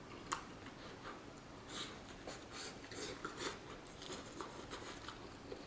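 Faint chewing of a mouthful of steak and rice, with a few soft, scattered clicks and smacks.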